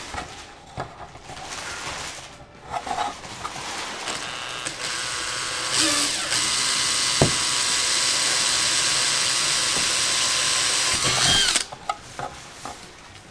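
Makita cordless drill with a small (about 1/8 inch) bit drilling a pilot hole through a plastic dash tray. After a few handling clicks it speeds up, runs steadily at a high pitch for about five seconds, then winds down and stops.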